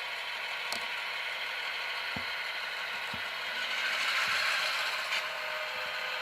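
HO-scale model diesel switchers, an SW1500 and an MP15, running with Tsunami sound decoders: their small speakers play a steady diesel engine sound, with a few scattered clicks.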